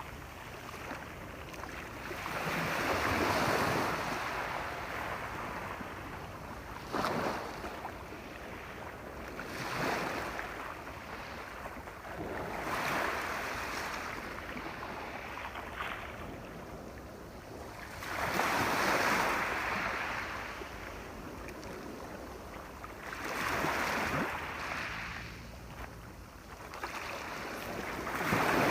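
Sea waves breaking and washing up a shore, each surge swelling and fading every few seconds over a steady rush of surf.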